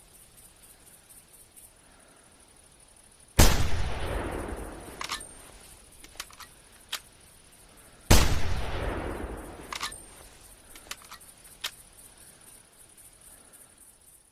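Remington 700 bolt-action rifle fired twice, about five seconds apart, each shot loud with a long echoing tail. Each shot is followed by several sharp metallic clicks, the bolt being worked to chamber the next round.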